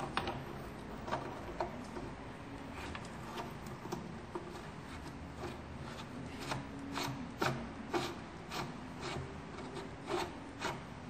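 Steel universal tool rest on a bench grinder being adjusted by hand: irregular metal clicks and rubbing as the rack-and-pinion knob is turned and the carriage slides, the clicks coming more often in the second half.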